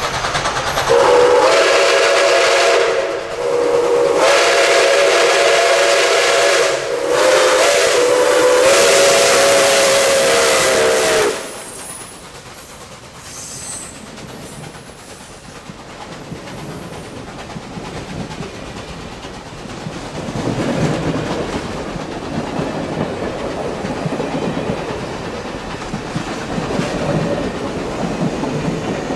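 Nickel Plate Road 765, a 2-8-4 Berkshire steam locomotive, blows its steam whistle in three long blasts over about ten seconds, a chord of several notes sounding together. The whistle cuts off suddenly, and the locomotive and its passenger cars then roll past on the rails.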